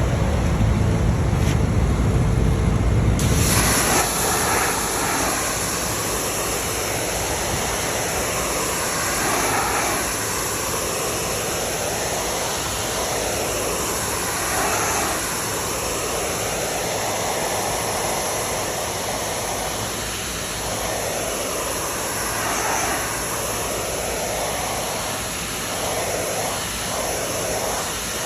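A low engine-like rumble for about the first three seconds, then a sudden switch to a steady hiss of pressure-washer water spray cleaning make-up air filters, its tone shifting slowly as the jet sweeps across.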